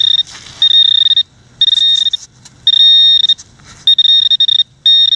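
Handheld metal-detecting pinpointer sounding its high alarm tone in about five half-second bursts as it is probed through loose soil in a dug hole, signalling metal close to its tip.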